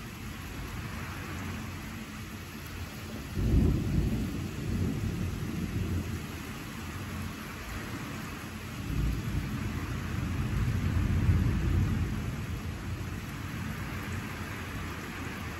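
Steady rain with two rumbles of thunder: one starts suddenly about three seconds in and dies away, and a longer rolling one swells past the middle and fades.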